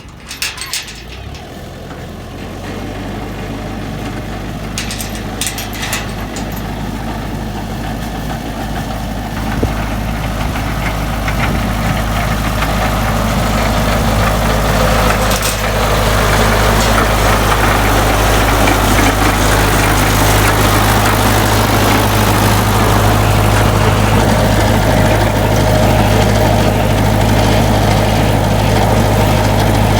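A heavy vehicle engine running steadily, growing louder over the first fifteen seconds or so and then holding level.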